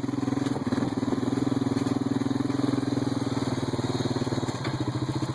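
Small motor-vehicle engine running steadily at low speed, with an even, rapid pulse.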